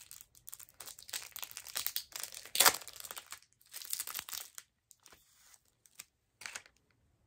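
Wrapping of a pack of Pokémon cards crinkling and tearing as it is opened, in dense crackles for the first four and a half seconds, loudest about two and a half seconds in, then a few faint rustles.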